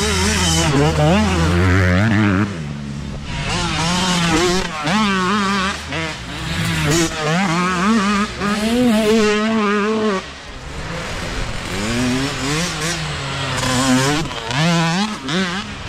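Small youth dirt bike engines revving hard on a rough wooded trail, their pitch rising and falling with every throttle change. The throttle comes off briefly about two and a half seconds in and again about ten seconds in.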